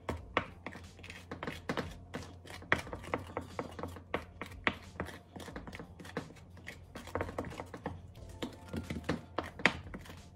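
Wooden spoon stirring a thick, creamy Cool Whip and condensed-milk mixture in a glass bowl, with irregular clicks and taps as the spoon knocks and scrapes against the glass. The crackle of unmixed Cool Whip bits is heard less and less, the sign that the mixture is almost fully blended.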